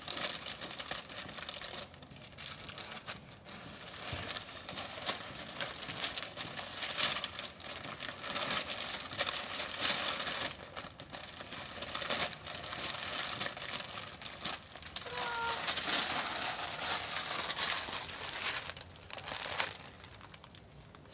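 Brown masking paper, plastic sheeting and painter's tape being pulled off an RV window and crumpled: an uneven run of crinkling and tearing that comes and goes with the handling.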